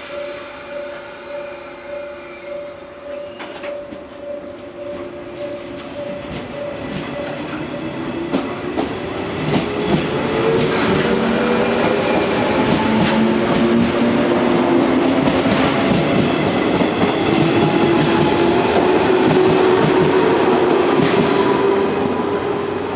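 A JR West 115 series electric train pulling away from a standstill: a pulsing tone sounds for the first several seconds, then the traction motors whine, rising in pitch as the train gathers speed past, with the wheels clacking over the rail joints.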